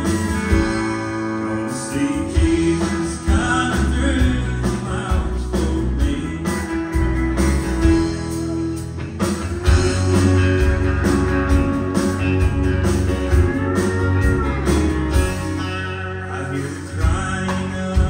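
A live country band playing a song: a man singing lead over acoustic and electric guitars and drums.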